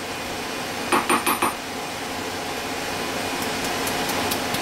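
A quick cluster of four or five metallic clinks and knocks about a second in as the machined aluminium ball nut mount is handled and lifted out of the steel milling vise, followed by a few faint light ticks near the end, over a steady background noise.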